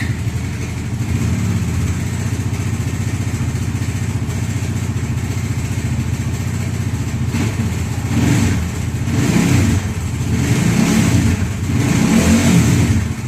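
Bajaj Dominar 400's single-cylinder engine just started and running, blipped up in revs four times in the second half. It carries an abnormal engine noise, called a bad noise, which other shops blamed on the piston or crank but the mechanic puts down to a small fault.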